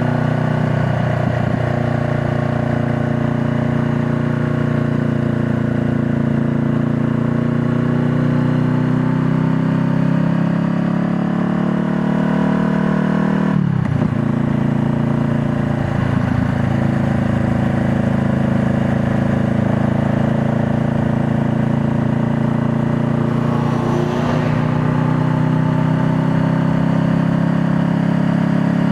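2020 Honda Rebel 500's parallel-twin engine running steadily under way, its note rising and falling gently with the throttle. There is a brief break in the engine note about halfway through.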